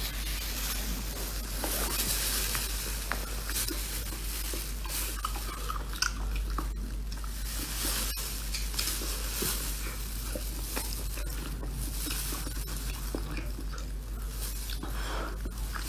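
Close-up chewing, biting and tearing of a whole cooked octopus handled with plastic-gloved hands: many small wet clicks over a steady hiss and a constant low hum.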